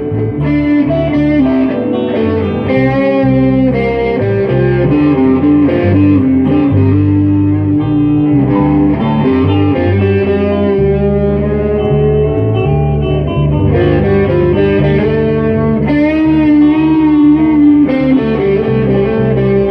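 Instrumental break in a song: a guitar plays a lead line with bent notes over a steady low backing, with no singing.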